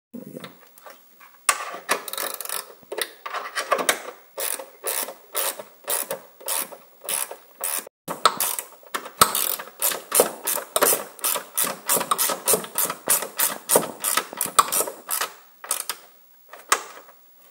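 Hand ratcheting wrench clicking as it is swung back and forth, turning a ground bolt into a sheet-metal bracket. Short strokes of ratchet clicks about twice a second, stopping near the end.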